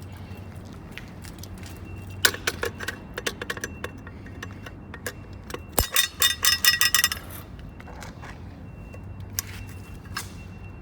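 A bunch of keys jangling and clinking in bursts: scattered clinks about two seconds in, then a louder run of jingling around six to seven seconds, over a low steady hum.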